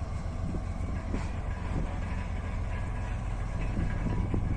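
PKP Cargo diesel locomotive's engine running with a steady low rumble as it pulls a freight train slowly along.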